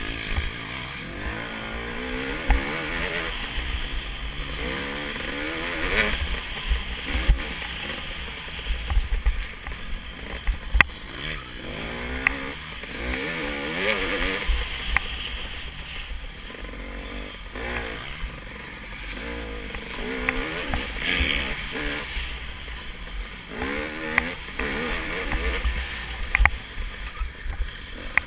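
Dirt bike engine heard from on board the bike, revving up and down over and over as the rider works the throttle and gears, with scattered sharp knocks and rattles over the rough trail.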